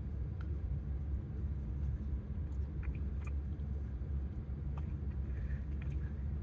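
A man eating buffalo wings: faint chewing with a few small clicks, over a steady low rumble.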